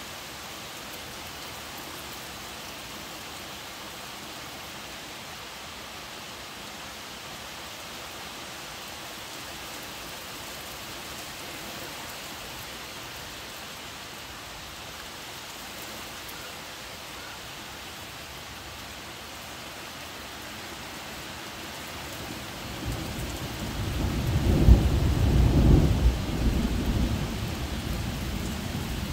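Steady rain falling on trees, with a loud roll of thunder near the end that builds, peaks and trails off.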